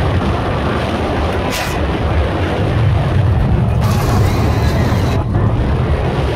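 Incredicoaster steel roller coaster train running along its track, heard on board: a steady low rumble with wind rushing over the microphone, growing louder and hissier about four seconds in for a second or so.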